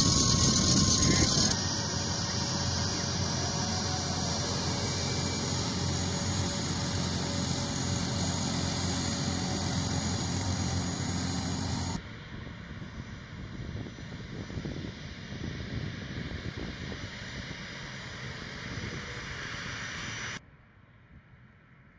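A P-51 Mustang's V-12 piston engine running steadily. After a cut it gives way to the quieter, even rush of an A-10's jet engines with a thin high whine, which drops away to a faint hum near the end.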